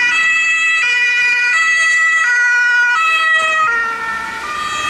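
German ambulance two-tone siren (Martinshorn) sounding, alternating between a high and a low tone about every three-quarters of a second. About four seconds in, as the ambulance passes close by, both tones drop slightly in pitch and the siren gets a little quieter.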